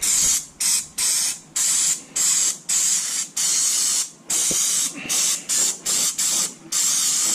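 Aerosol can of electrical cleaner and lubricant sprayed in about a dozen short hissing bursts with brief gaps between them.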